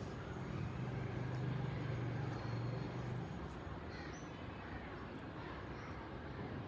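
Wind blowing on the microphone as a steady rushing noise, with a steady low hum for the first three seconds and a few short high chirps later on.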